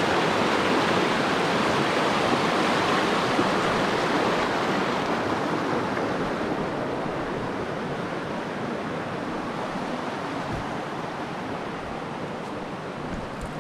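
Rushing river water, a steady dense rush that gradually grows fainter through the second half.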